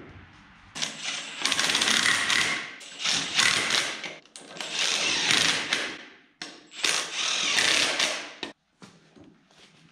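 Cordless impact wrench hammering lug nuts onto the wheel studs of a side-by-side wheel, in about five loud bursts of a second or so each with short pauses between.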